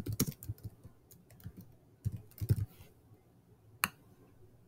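Typing on a computer keyboard: a quick run of key clicks at the start, another short run about two seconds in, and a single sharper click near the end.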